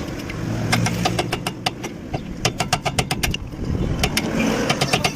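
Quick runs of sharp metallic clicks from a tool working on the brake caliper's bolts as it is being removed. A steady low hum runs underneath.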